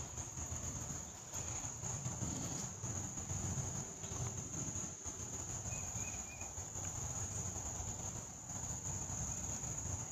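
Insects trilling steadily in one continuous high-pitched chorus, over a low uneven rumble.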